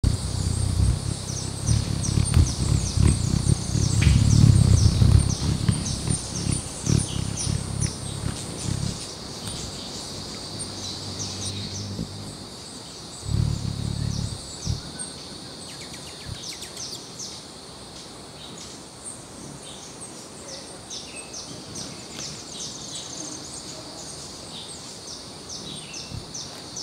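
Hummingbird wings humming loudly close to the feeder, in bursts through the first nine seconds and again briefly about thirteen seconds in. Under it runs a steady high buzz and many quick high chips from the birds.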